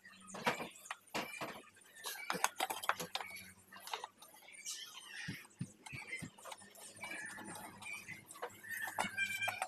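Scattered light clicks and taps of pliers and a steel saw-blade piece being handled and worked by hand, with faint chirping in the background that grows busier near the end.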